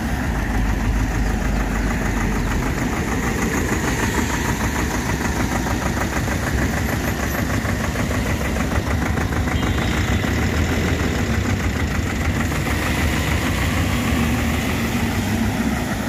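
Bitumen sprayer truck's engine running steadily with a fast, even pulse while it sprays tack coat from its rear spray bar.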